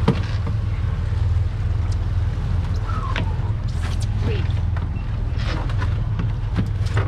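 Twin 300 hp outboard motors running steadily underway, a low drone. A few scattered knocks and thumps sound over it.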